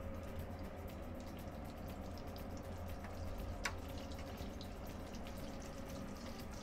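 Dredged chicken drumstick deep-frying in hot oil: a steady fine crackling sizzle of bubbling oil over a steady low hum, with one sharp click a little after the middle.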